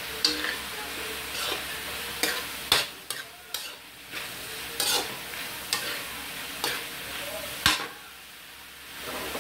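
Metal spatula scraping and clanking against a wok as gizzards and chilies are stir-fried, giving about nine irregular sharp clanks over a steady sizzle.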